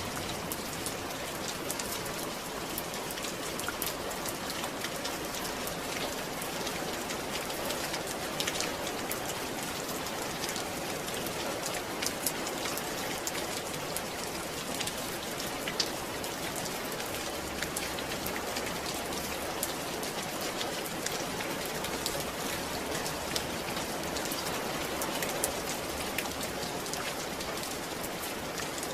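Steady rain falling, with many separate drops pattering on a surface.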